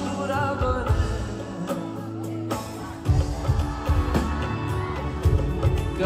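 Live pop band with a male vocalist singing a slow Urdu-Hindi song over guitar, keyboard and drums, heard from the audience in a concert hall. The beat drops out briefly near the middle and the drums come back in.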